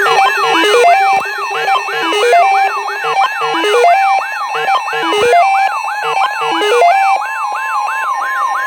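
Electronic emergency-alert alarm sounding for a tropical storm warning: a siren-like tone sweeping down from high to low two or three times a second, over a stepping electronic tune, with a steady tone coming in near the end.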